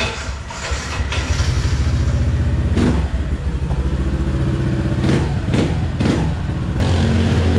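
Motor scooter engine starting about a second in and then idling steadily, with a few brief sharper sounds over it.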